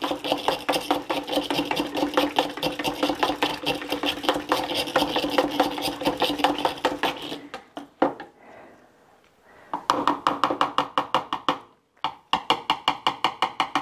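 Push-down spinning whisk beating two eggs in a small bowl: a rapid rattling whir of fast, even clicks. It stops about seven and a half seconds in, then resumes in two shorter spells near the end.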